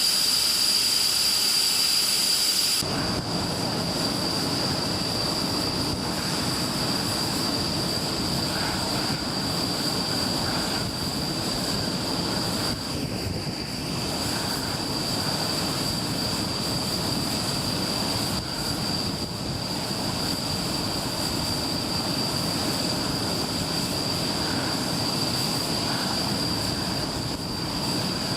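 Tornado GR4 jets' RB199 turbofan engines running on the ground: a steady high whine over a loud rush. About three seconds in the sound shifts, the highest whistle dropping back as a lower rush comes up.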